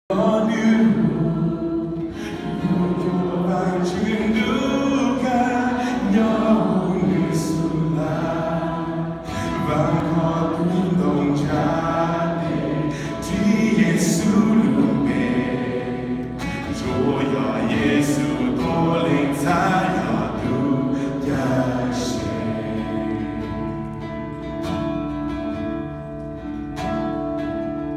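Congregational worship song sung in Hmong, voices carrying sustained notes over live band accompaniment through the hall's sound system.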